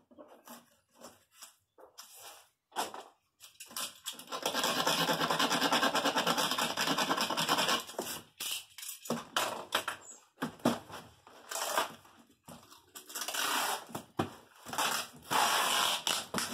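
Brown packing tape being pulled off its roll and pressed onto a cardboard box: one long unrolling pull of several seconds, then several shorter pulls near the end, with scraping and knocking of the cardboard flaps in between.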